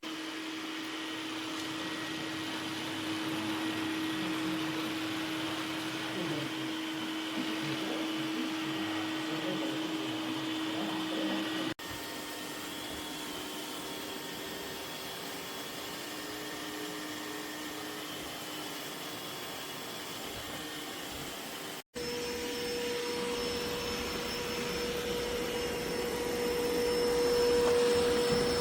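Dreame X50 Ultra robot vacuum running: steady suction-motor noise with a held hum. The sound cuts off abruptly twice, about twelve and twenty-two seconds in, and the hum's pitch is higher after the second cut.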